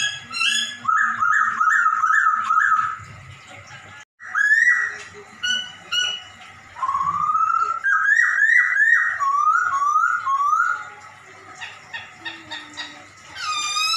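A poksay (laughingthrush) singing loud whistled phrases: runs of quick repeated notes that rise and fall, in several bursts with short pauses between, and a longer swooping note near the end.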